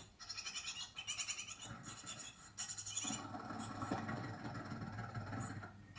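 Great tit nestlings' begging calls: short bursts of very fast, high chittering, several in a row, coming through a television's speaker. In the second half the chittering fades under a lower rustling noise.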